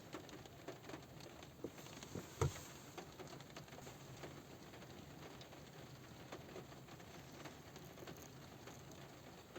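Light rain falling on a car roof: faint, irregular drops tapping, with one louder drop hitting about two and a half seconds in.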